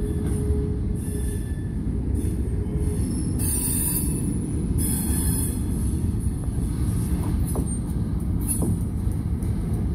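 Freight cars rolling slowly along the track, their wheels rumbling on the rails, with short high wheel squeals coming and going and a thin steady squeal in the first second or so.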